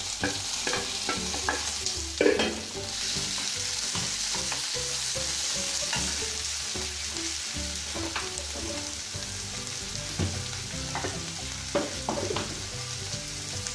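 Chopped onions and green chillies sizzling in hot oil in a kadai while a wooden spatula stirs them, scraping and knocking against the pan. The stirring clatter comes in the first few seconds and again near the end, with a sharp knock about two seconds in. Between the bursts of stirring there is a steady sizzle.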